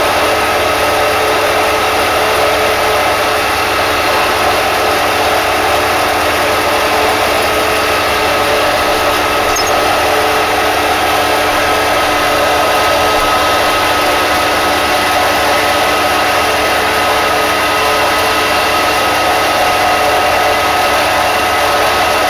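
Harbor Freight belt knife grinder running steadily under power, a constant motor hum with belt noise.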